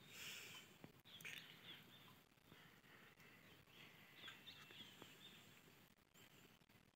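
Near silence: faint outdoor ambience with a few short, faint bird chirps.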